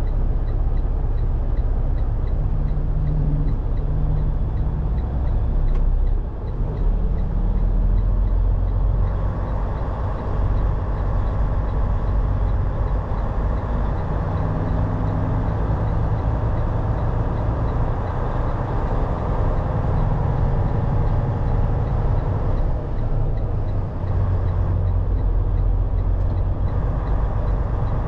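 Semi-truck diesel engine running, heard from inside the cab, its pitch shifting and briefly dipping a few times as the driver works through the gears of the manual transmission.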